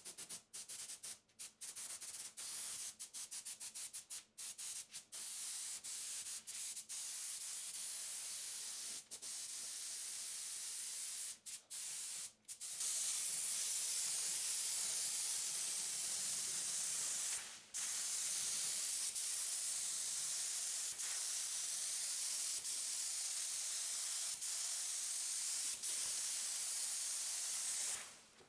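A compressed-air gravity-feed spray gun hissing as it sprays epoxy primer through a 1.8 mm nozzle. For the first half it comes in short bursts with many brief stops, then in long unbroken passes.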